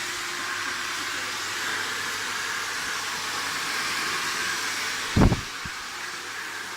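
Handheld hair dryer blowing steadily. A loud low thump comes about five seconds in, followed by a smaller one, and the dryer is a little quieter after it.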